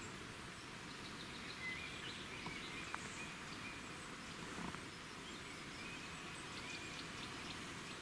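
Quiet outdoor ambience: a steady hiss with faint, thin bird calls about two seconds in and again around six seconds, and a few soft clicks.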